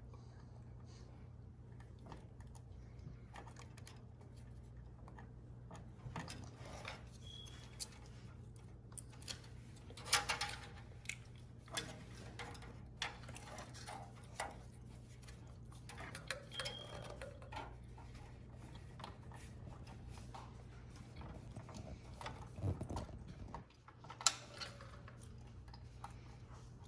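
Faint, scattered clicks and plastic rattles of hands working inside a PC case, routing a case-fan cable and pushing its connector onto the motherboard header, over a steady low hum.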